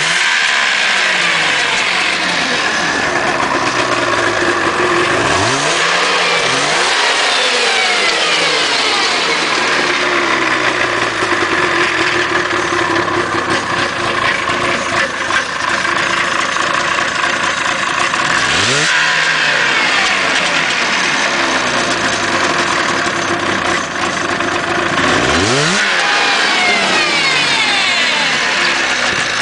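Yamaha Exciter 570 snowmobile's liquid-cooled two-stroke twin running shortly after a cold start. It idles steadily and is revved briefly about four times, the pitch climbing and falling back with each blip.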